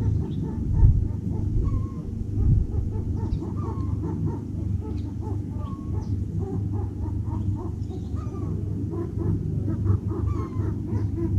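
Chickens clucking: a steady run of short, repeated clucks with a few drawn-out calls mixed in, over a continuous low rumble.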